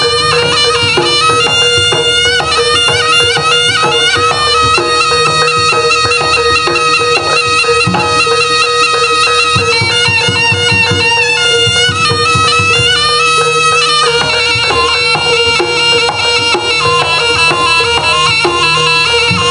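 Live Javanese jaranan music: a shrill double-reed slompret plays a wavering, ornamented melody over a steady held tone and kendang drumming.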